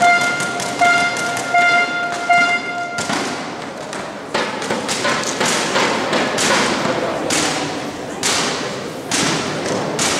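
A held pitched tone, horn-like or musical, for the first three seconds, then a run of irregular sharp knocks and thuds in a large hall.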